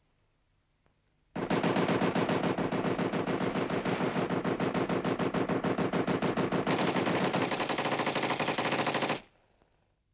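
Machine-gun fire: one long unbroken burst of rapid shots, starting about a second and a half in, brightening a little past the middle, and cutting off suddenly about a second before the end.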